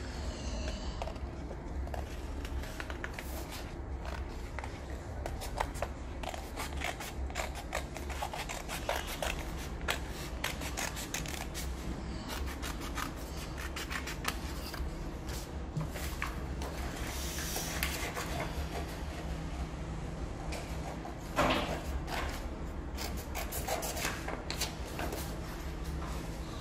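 Scissors snipping through paper in many short cuts as a shape is cut out, with the paper rustling, over a steady low hum. There is a louder rustle about twenty seconds in.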